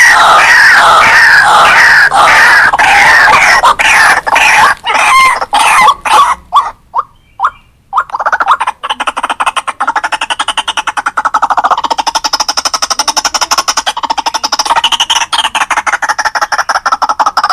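White-breasted waterhen calls: a run of repeated falling notes that speed up and break off about seven seconds in, then, after a short pause, a fast steady chattering to the end.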